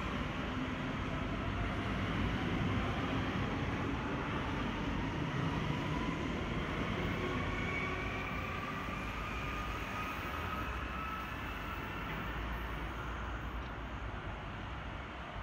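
Electric S-Bahn train pulling away and accelerating: its traction motors give a whine that climbs slowly in pitch as it speeds up, over a steady low rumble that fades gradually as the train moves off.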